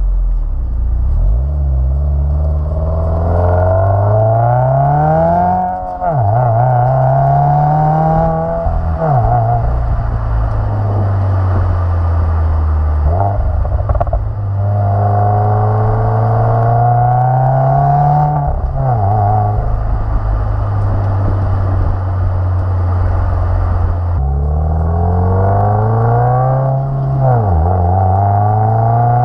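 Subaru WRX turbocharged 2.0-litre flat-four running through an aftermarket exhaust while the car accelerates. The engine pitch climbs and drops sharply at several gear shifts, with stretches of steady cruising in between.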